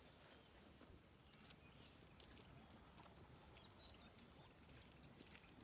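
Near silence: faint outdoor ambience with scattered small clicks and a few short high chirps.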